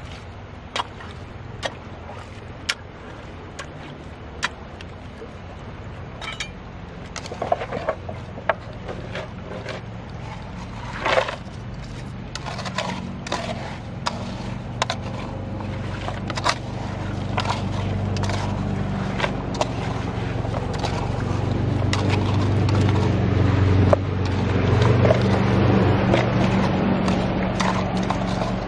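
Stones and wet gravel clattering and knocking as a gold panner pries up streambed gravel with a metal bar and scoops it by hand into a gold pan, with many separate sharp knocks. A steady low hum runs underneath and grows louder in the second half.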